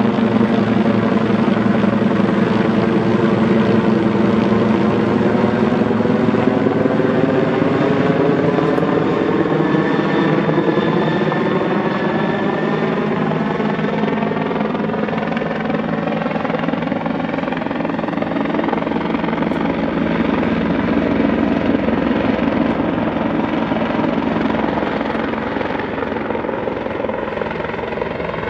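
Bell 412 twin-engine, four-blade helicopter flying low overhead and then away: steady rotor and turbine noise whose pitch falls slowly as it passes, getting a little quieter near the end.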